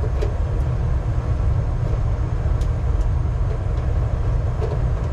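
New tank-type water heater filling through its cold supply line, water running into the tank as a steady low rumble with a few faint ticks.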